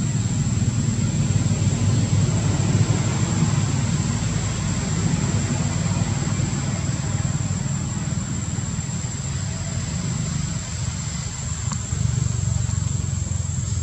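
Steady low outdoor rumble with a constant high-pitched whine above it.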